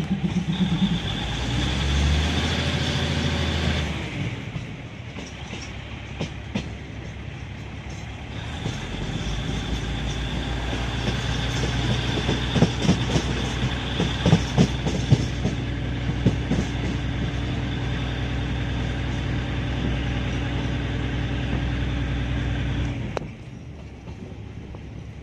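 Train running, heard from on board: a steady engine hum with wheels clicking over rail joints, the clicks thickest around the middle. The sound cuts off abruptly near the end.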